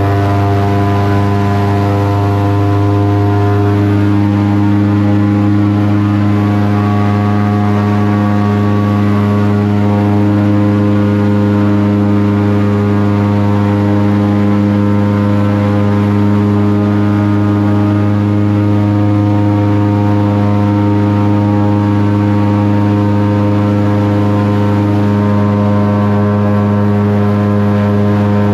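Airboat's engine and large air propeller running loud and steady at an even speed, a constant low-pitched hum with many overtones.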